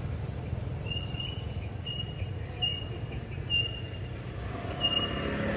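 A bird chirping: about six short, high, even notes, roughly a second apart, over a steady low rumble of background noise.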